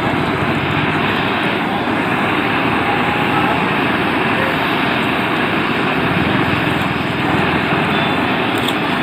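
Machinery running steadily at a road works, an even continuous noise with no clear rhythm or change in level.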